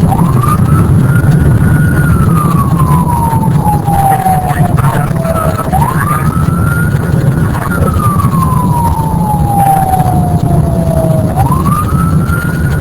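Outdoor tornado warning siren wailing as a tornado warning sounds: its pitch climbs quickly, holds and then falls slowly, about every six seconds, over a steady low rumble.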